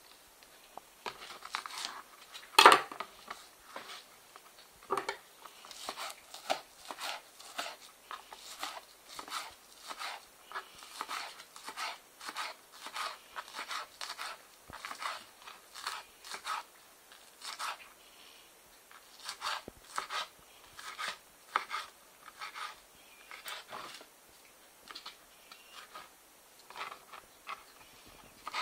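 Kitchen knife chopping green onions and dill on a plastic cutting board: a long series of uneven cuts, roughly one to two a second, with one much louder knock about two and a half seconds in.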